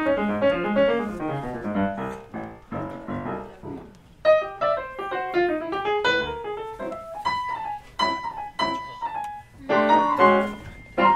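Two grand pianos playing jazz as a duet. Dense chords in the first couple of seconds give way to sparser, sharply struck single notes and short chords higher up the keyboard.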